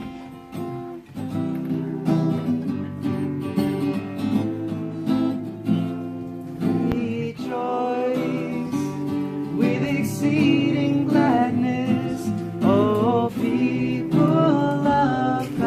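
Acoustic guitar strumming chords, with a voice singing along from about halfway through.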